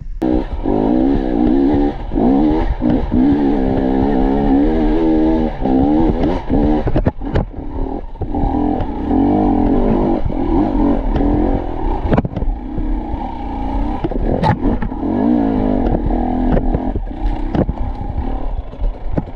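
Enduro dirt bike engine heard close up from the rider's helmet, its pitch rising and falling over and over as the throttle is worked on a rocky climb, with scattered sharp knocks and clatter from the bike over the rocks.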